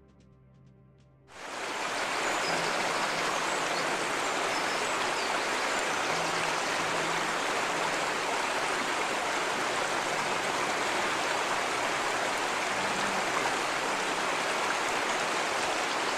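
Steady rush of flowing water, starting abruptly about a second and a half in after a faint end of music.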